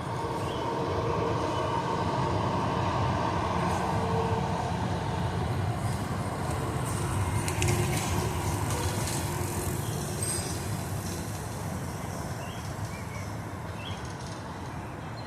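Steady rumble of a passing vehicle, swelling over the first seconds and slowly fading in the second half.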